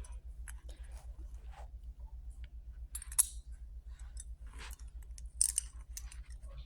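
Hard plastic Beyblade parts clicking and scraping as they are pressed and twisted together by hand, in scattered light clicks with a couple of louder ones about three and five and a half seconds in. A steady low hum runs underneath.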